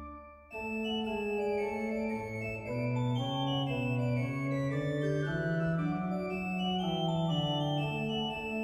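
Pipe organ playing a French Baroque noël variation: a held chord with pedal bass cuts off at the start, and after a brief pause a new section begins about half a second in, with several voices moving together over the bass.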